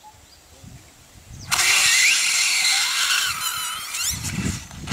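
A bloated elephant carcass venting gas built up by decomposition through a cut in its distended belly. A sudden loud hiss begins about a second and a half in, with high squealing glides over it, and a low rumble joins near the end.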